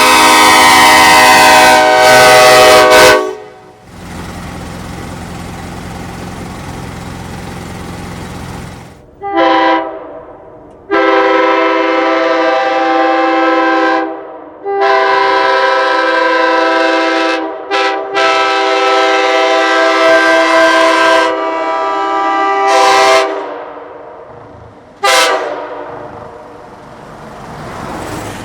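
Truck-mounted Nathan Airchime five-chime train horns: a K5LLA blast sounding a loud chord cuts off about three seconds in, followed by a few seconds of steady rushing noise. Then a K5LA hybrid horn sounds a short toot, four long blasts of a few seconds each with brief gaps between them, and a last short toot near the end.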